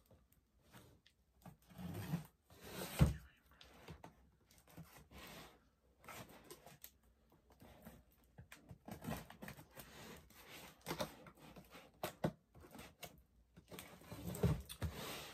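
Knife slicing and scraping through packing tape on a cardboard box, in short irregular scratchy strokes with a sharp knock about three seconds in. The tape is stuck on hard.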